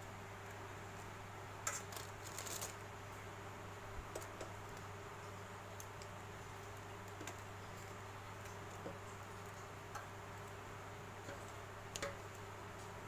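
Kitchen scissors snipping through blue swimmer crab legs and shell: scattered sharp clicks and crunches, a few louder ones about two seconds in and again near the end, over a steady low hum.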